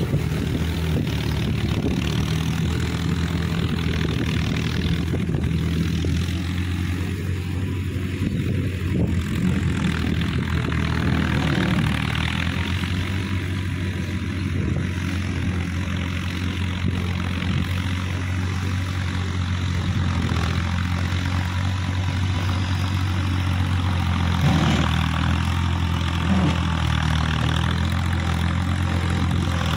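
Diesel farm tractor engine running steadily as the tractor pulls a tillage implement through a field.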